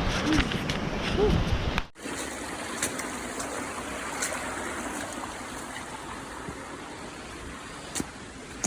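Wind rumbling on the microphone, then an abrupt cut about two seconds in to the steady rush of a mountain stream, with a few light clicks.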